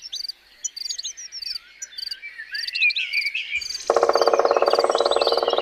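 Birds chirping and singing, with short repeated chirps and gliding calls. About four seconds in, a loud, rapid, evenly pulsing trill lower in pitch joins them and keeps going.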